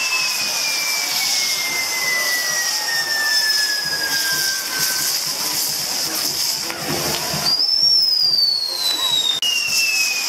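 Fireworks burning at close range: a steady high hiss with long whistles that slowly fall in pitch. One whistle dies away about halfway through, and another starts about three-quarters of the way in, rises briefly and then falls.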